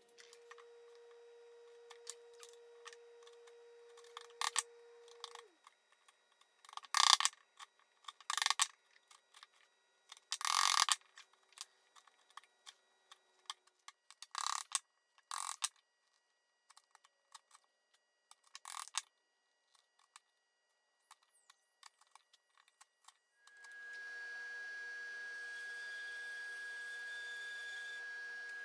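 Scattered short scrapes and knocks of hand tools working wood on a bench, the loudest lasting under a second each. Near the end a steady hiss with a high steady tone sets in and runs on.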